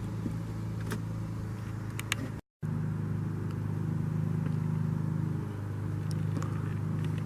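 Mazda Miata's inline-four engine idling steadily after an oil change, run to check for leaks. The sound drops out completely for a moment about two and a half seconds in.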